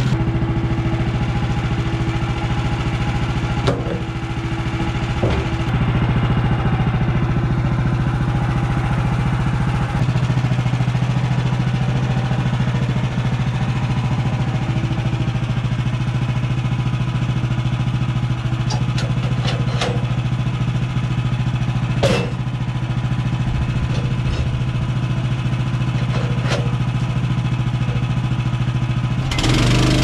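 Woodland Mills HM130max portable bandsaw mill: its gas engine running steadily under load while the band blade is pushed through a log, with a few brief sharp clicks. The blade is an old, partly dull one, the kind that leaves wavy cuts.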